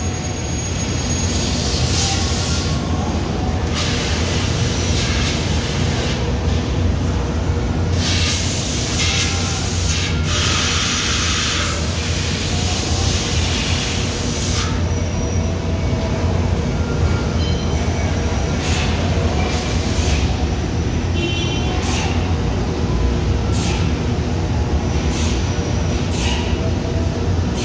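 Doosan CNC vertical mill running an automatic tool-length measurement cycle: a steady machine hum as the axes move the spindle probe to the tool setter, with several seconds of loud hissing partway through and a few light clicks later.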